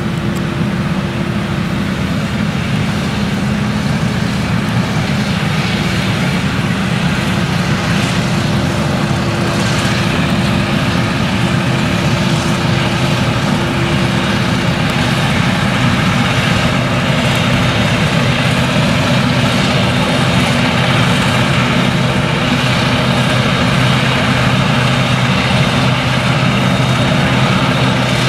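Claas Jaguar 970 forage harvester's MAN V8 engine running under full load while its chopper cuts maize, a steady deep drone under a dense, hissing rush, mixed with the tractor pulling the trailer alongside. It grows a little louder over the first half as the machines draw nearer.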